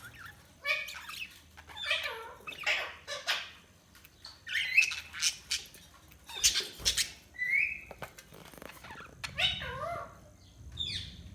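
Budgerigars chirping and warbling in short, quick bursts of rising and falling notes, with pauses between and a few sharp clicks.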